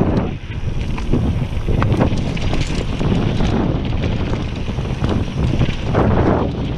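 Wind buffeting an action camera's microphone on a fast mountain-bike descent, over the rumble of tyres on dirt singletrack. Short clicks and knocks come through several times as the bike rattles over bumps.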